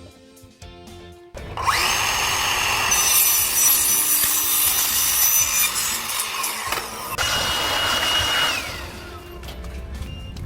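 A handheld power tool spins up with a rising whine, runs loudly under load for about seven seconds, then winds down with a falling whine. Quiet background music plays before and after it.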